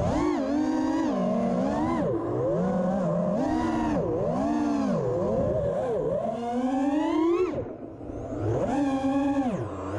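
Brushless motors of an FPV freestyle quad (Hurricane 2207 2500kv with DAL T5045C tri-blade props) whining as the throttle is worked up and down. The pitch swoops up and down every second or so, with one long rising whine, then a brief throttle cut about three-quarters of the way through before it punches back up.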